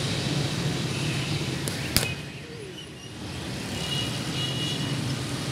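A single sharp crack about two seconds in, a cricket bat striking the ball in the nets, over a steady low rumble of road traffic.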